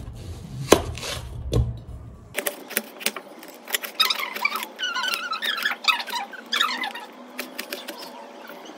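A knife cuts into a red onion on a steel plate, with a sharp click against the plate under a second in. Then comes a run of small squeaks and crackles as the onion's layers are peeled and pulled apart by hand.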